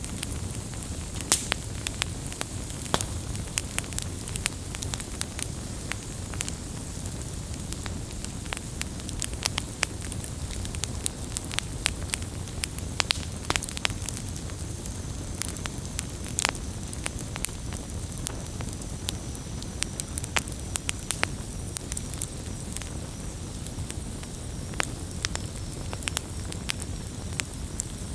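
Wood campfire burning with frequent sharp crackles and pops scattered irregularly over a steady low rumble of the flames.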